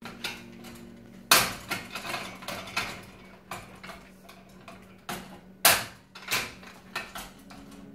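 Metal baby gate rattling and its latch clicking as an Airedale Terrier puppy paws and mouths at it: a run of irregular knocks and clanks, with two loud clanks about a second in and near six seconds in.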